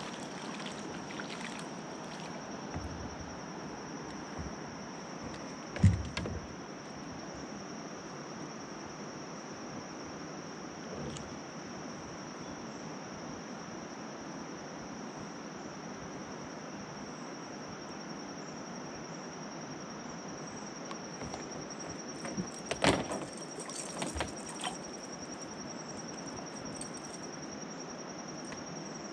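Gear knocking on a plastic fishing kayak: one low thump and, later, a short cluster of sharp knocks and rattles, over a steady hiss and a thin high whine.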